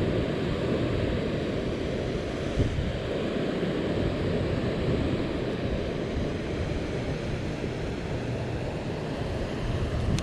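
Strong wind buffeting the microphone: a steady, gusting rumble.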